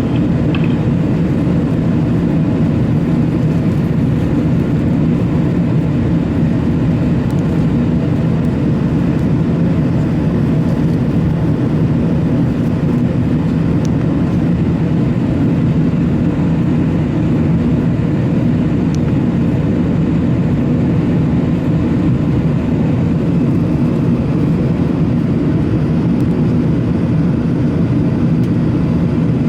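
Steady cabin noise inside an Airbus A380 climbing after takeoff: a constant low rumble of its four Rolls-Royce Trent 900 engines and rushing airflow, with no changes.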